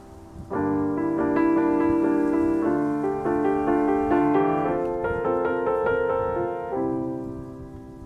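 Solo piano music, a slow passage of sustained notes and chords that comes in about half a second in and grows quieter near the end.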